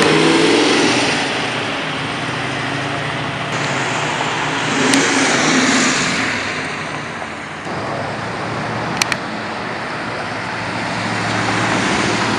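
Classic American muscle cars driving past one after another, engines running and revving as they pull away, among them a Mustang fastback, a Plymouth Barracuda and a Chevelle. Two short, sharp snaps come close together about nine seconds in.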